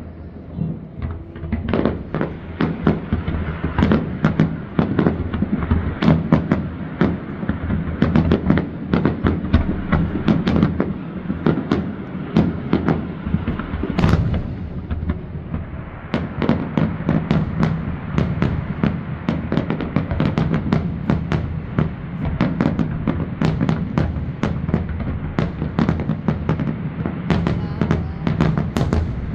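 Fireworks display: a dense, continuous barrage of aerial shell bursts, several bangs a second, thickening after about two seconds, with one especially sharp bang about halfway through.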